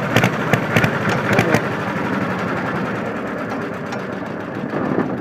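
Exhaust of a Deutz F2L612 two-cylinder air-cooled diesel, with several sharp cracks in the first second and a half, then running steadily and slowly getting quieter.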